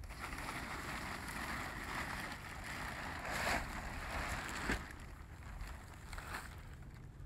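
Plastic tarp rustling and crinkling as it is pulled and shaken over a ridgeline, loudest about halfway through, with one sharp snap a little later.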